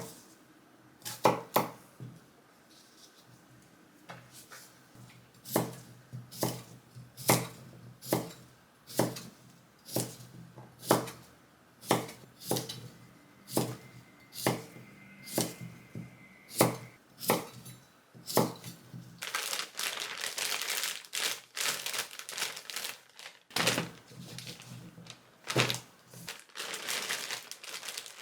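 Knife chopping vegetables on a cutting board: single sharp strokes about one a second for the first two-thirds, then a stretch of dense crinkling and rustling with a few more strokes.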